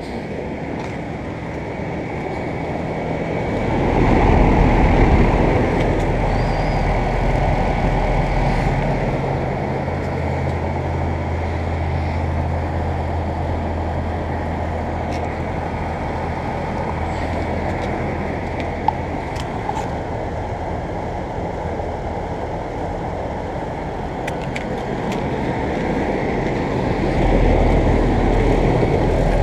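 Central air conditioner condenser units running: a steady fan rush over a low compressor hum, swelling louder about four seconds in and again near the end.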